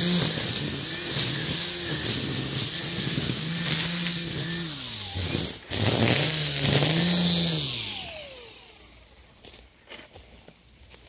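Milwaukee M18 Fuel cordless string trimmer's electric motor whining as the spinning line cuts through weeds. Its speed rises and falls over and over. It then winds down with a falling whine and stops about eight seconds in.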